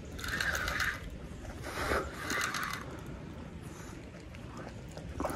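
Carp reel's drag giving line to a hooked carp in three short bursts of rapid clicking, the first right away and two close together about two seconds in: the fish is pulling line during the fight.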